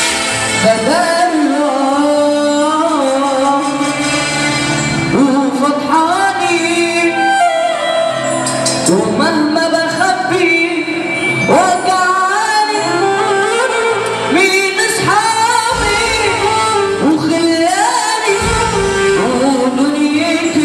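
A boy singing through a microphone and PA over backing music, drawing out long ornamented notes that slide up and down in pitch.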